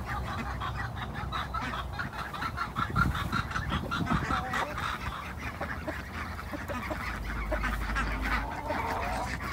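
A backyard flock of ducks and chickens calling: a steady run of quick, short duck quacks with hens clucking among them.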